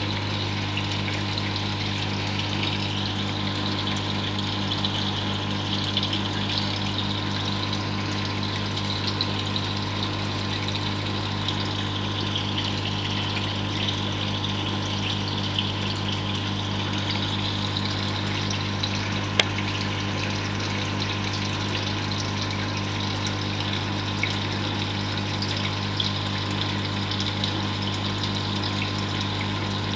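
Reef aquarium pumps and circulating water: a steady hum with a constant rush of water, and a single sharp click about two-thirds of the way through.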